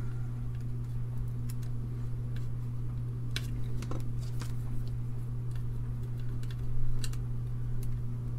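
Scattered small clicks and taps of chips being pried out of their IC sockets on a circuit board, with a louder cluster of clicks about seven seconds in, over a steady low hum.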